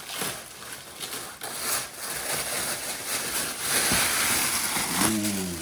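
Packaging being torn off and crinkled by hand: scattered crackles and rips at first, then a denser, continuous crinkling for a couple of seconds.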